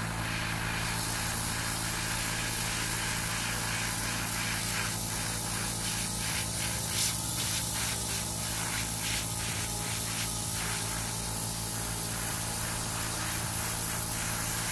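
Gravity-feed double-action airbrush spraying topcoat paint onto a small metal part: a steady hiss of air and paint, with a small airbrush compressor humming beneath it. In the middle the hiss stutters in quick pulses as the trigger is worked.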